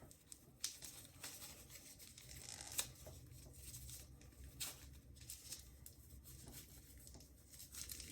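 Faint tearing and crinkling of packaging being unwrapped by hand, with a scatter of short, sharp rustles and clicks.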